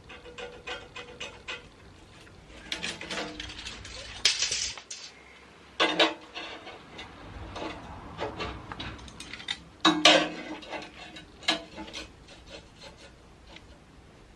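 Metal bar being handled and marked out to length: scraping and rubbing, small clicks, and several sharp metallic clanks, the loudest about six and ten seconds in.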